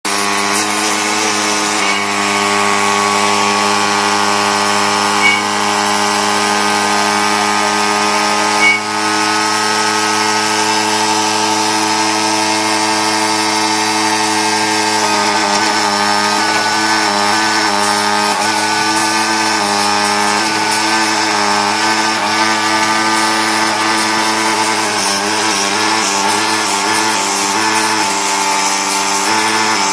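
Automatic key-cutting machine running, its cutter spindles giving a steady hum with several held tones. Two sharp clicks come about five and nine seconds in, and from about halfway the tones waver in pitch.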